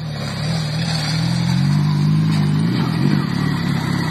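A motor vehicle engine running, its pitch rising a little around the middle and then settling.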